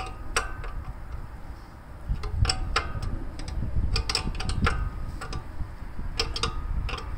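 Light metallic clicks and clinks of a wrench on a steel fuel-line fitting at a Gravely tractor's sediment bowl, about ten sharp ticks at uneven spacing, some in quick pairs, over a low rumble.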